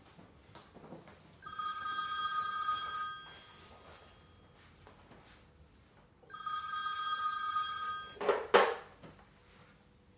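An old-style landline telephone rings twice, each ring a steady two-second bell tone. Just after the second ring stops, a loud clatter comes as the handset is lifted off the cradle.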